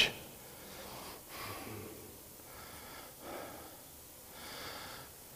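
A man's breathing in a pause between sentences: three faint breaths over quiet room tone.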